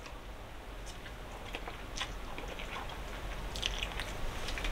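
People chewing instant ramen noodles eaten with forks: irregular small wet mouth noises and short clicks.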